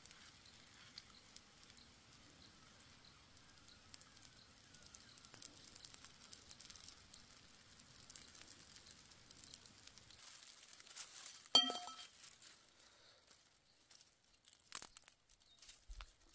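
Faint, sparse crackling from hot wood embers under a rat roasting on a spit, with one sharper, brighter click about eleven and a half seconds in.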